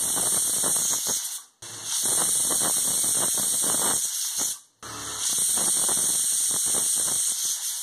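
Stovetop pressure cooker whistling: steam blasting out under the weighted whistle valve with a shrill, hissing squeal and a sputtering rattle, in three stretches that each break off abruptly. The whistle is the sign that the cooker has reached full pressure, each one counted toward the four whistles the potatoes need.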